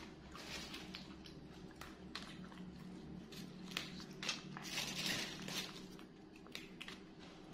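Leafy greens being picked over by hand, with irregular rustling of leaves and small crackles and snaps of stems.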